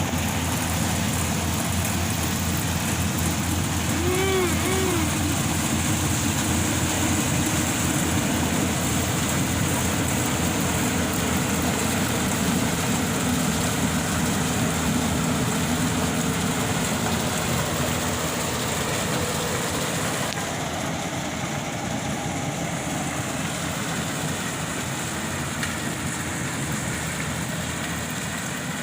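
Yanmar AW-70V combine harvester's diesel engine and harvesting machinery running steadily, easing off slightly in the second half.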